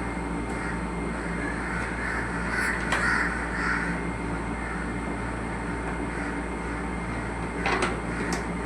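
Birds calling with repeated short caws over a steady low hum.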